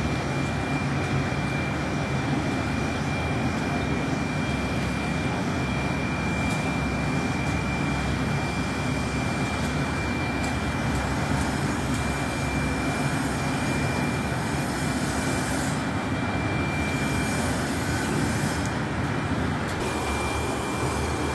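A steady machine running noise, even in level, with a thin high whine held throughout.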